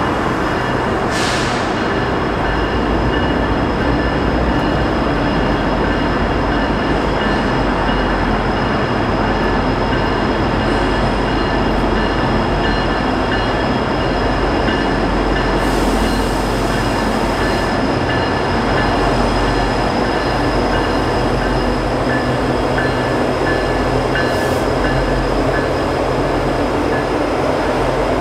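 Norfolk Southern diesel-electric freight locomotives approaching and passing close by: a loud, steady rumble of engines and wheels on rail, with a few thin high tones held throughout and three brief high hisses.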